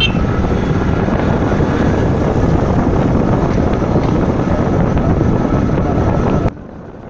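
Wind rushing over the microphone of a moving 70cc motorcycle, with the engine running underneath. It is loud and steady, then drops suddenly to a much quieter level about six and a half seconds in.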